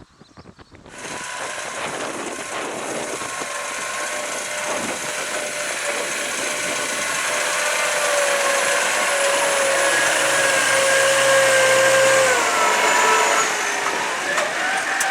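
Case IH Puma 200 CVX tractor's six-cylinder diesel running under load while pulling a deep plough, with a steady whine over the engine. It starts suddenly about a second in, grows louder, and near the end the pitch dips and then rises again.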